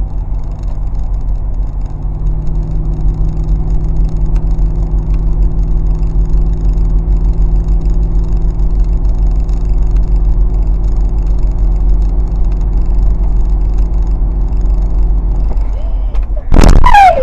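Car driving at highway speed, its engine and tyres a steady drone heard from inside the cabin. About a second before the end comes a sudden, very loud noise with a falling pitch.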